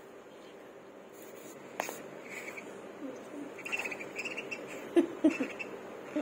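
Two budgerigars squabbling beak to beak: short, soft chirping chatter, broken by a few sharp taps. The two loudest taps come close together about five seconds in.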